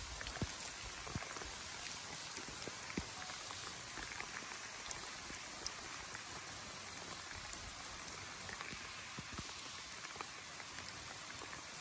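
Steady outdoor background hiss, with many faint scattered crackles and ticks and a few sharper clicks.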